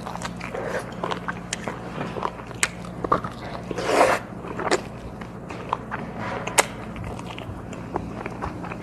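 Biting and chewing on braised pig's trotter held by the bone, with a run of short, wet clicking mouth sounds and one longer noisy sound about four seconds in, over a steady low hum.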